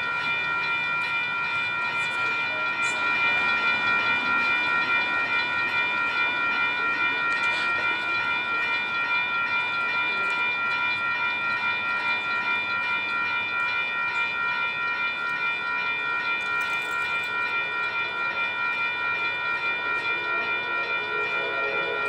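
Railroad grade-crossing warning bell ringing continuously while the crossing signals flash, its ringing tones held steady with a slight regular pulse. Near the end a lower-pitched sound joins in.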